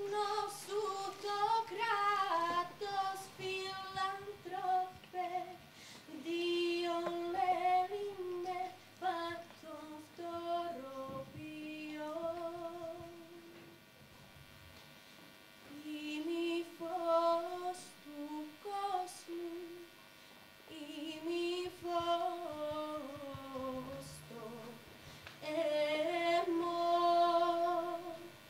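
A girl singing a slow solo melody with vibrato, in phrases separated by short breaths.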